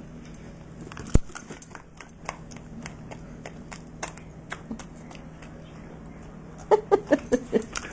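Dachshund licking and lapping ice cream off a spoon: scattered wet, clicking smacks of tongue and mouth. There is one sharp knock about a second in and a quick run of louder smacks near the end.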